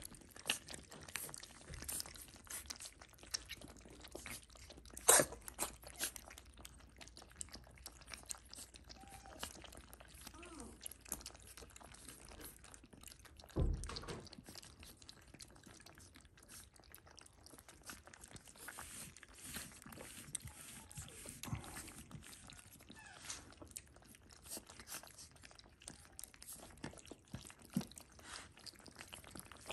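Shiba Inu puppies lapping and chewing soaked kibble from a stainless steel pan: a steady run of small wet clicks and slurps. There is a sharp clink about five seconds in and a dull thump near the middle.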